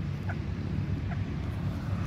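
Steady low rumble of wind buffeting the microphone, with two faint short bird calls, one just after the start and one about a second in.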